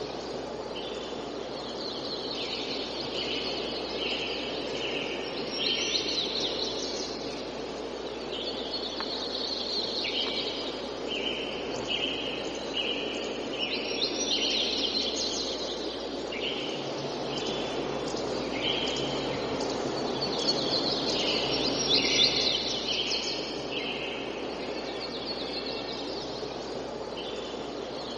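Tropical forest morning ambience: birds call in runs of short repeated notes, with quick sweeping calls that are loudest about six, fourteen and twenty-two seconds in. Beneath them runs a steady background hiss of wind in the trees.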